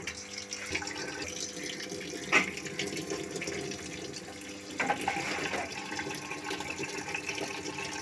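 Samsung 6.5 kg top-load washing machine filling its drum with water: a steady rush of water with a faint steady hum. Two short knocks come a few seconds apart.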